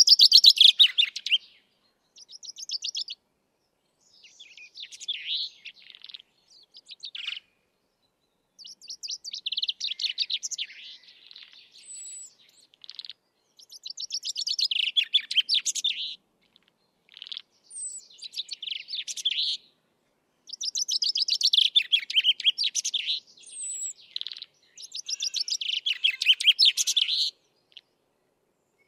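Chaffinch song: trilled phrases that fall in pitch, each about two to three seconds long, repeated every few seconds, with a few short high thin notes in between.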